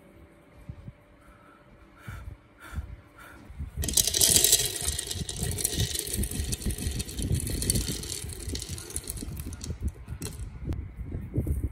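Roasted, skinned peanuts poured from a plastic basket into a small plastic blender jar: a dense rattle of nuts hitting the plastic, starting about four seconds in, loudest and brightest at first and duller as the jar fills. A few light clicks before it.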